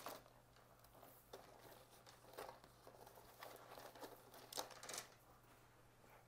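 Faint rustling and scuffing as a checked coated-canvas mini pochette is pushed into a quilted leather YSL Small Puffer bag, with a few slightly louder brushes around the middle and near the end.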